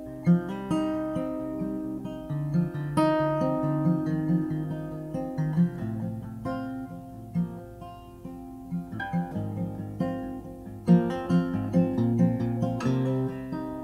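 Acoustic guitar playing an instrumental intro, picked and strummed notes over held low notes.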